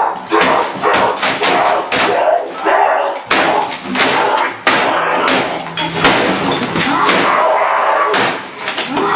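A boy screaming while slamming a computer keyboard against a desk again and again, a rapid string of sharp impacts under his shouting.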